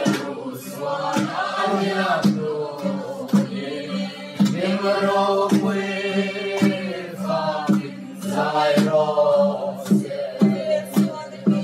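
A group of men and women singing a Mizo hymn together, with sharp beats keeping time behind the voices.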